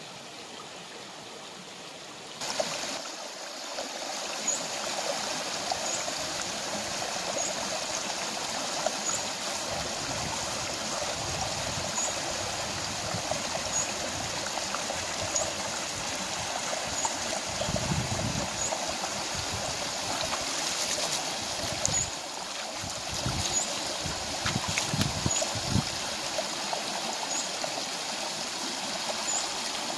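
Rocky stream rushing and trickling over stones, a steady noise of water that gets louder about two seconds in. A short high chirp repeats about every one and a half seconds over it.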